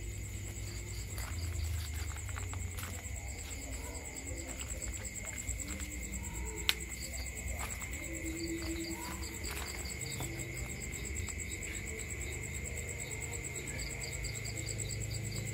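Insects chirping steadily: a continuous high trill with a lower steady whine beneath it, and short runs of pulsed chirps every few seconds. One sharp click about seven seconds in.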